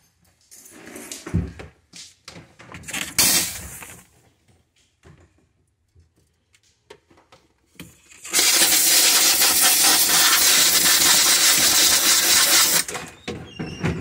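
Hand-held steamer blasting steam onto the ice-packed evaporator coil, a loud steady hiss lasting about four and a half seconds that cuts off abruptly. Before it, a few knocks and rustles as the steamer is handled.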